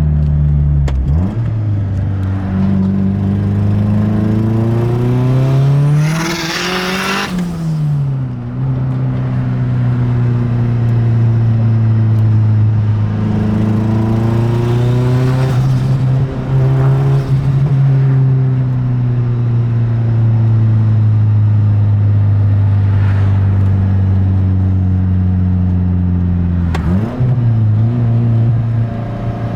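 Mazdaspeed 6's turbocharged 2.3-litre four-cylinder engine pulling hard under acceleration, its pitch climbing and dropping several times through the gears. A loud hiss lasts about a second and a half about six seconds in.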